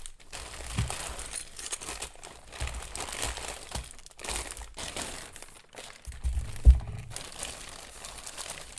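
Small plastic zip-lock packets crinkling and rustling as they are picked through by hand, with soft knocks of the packets against the table and one louder thump about two-thirds of the way through.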